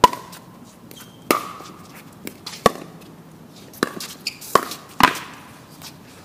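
Pickleball rally: paddles hitting the hard plastic ball, about six sharp knocks, each with a brief ring, spread unevenly over five seconds. The loudest is the serve at the start, with another strong hit about five seconds in.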